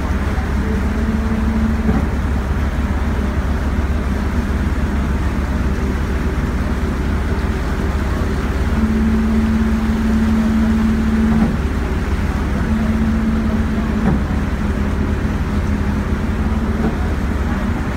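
A cruising boat's engines running steadily under way, giving a constant low drone. A higher steady hum comes and goes over it in stretches of a few seconds.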